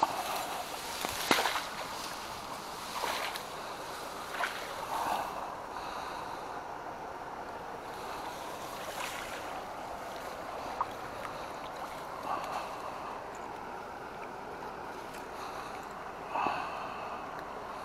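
Seawater lapping and sloshing against a breakwater, a steady wash with a few sharp knocks and clicks scattered through it.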